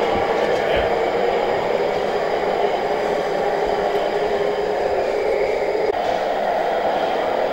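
Radio-controlled scale Kenworth truck driving steadily, its onboard sound unit giving a constant engine-like running noise.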